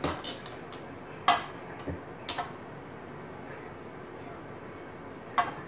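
Hands kneading and mixing ground beef in a mixing bowl, with a handful of sharp, irregular knocks and clicks as the bowl is worked.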